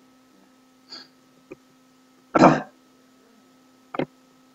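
A person clears their throat once, loudly and briefly, about halfway through, with a fainter short sound about a second in and a sharp short sound near the end, over a faint steady electrical hum.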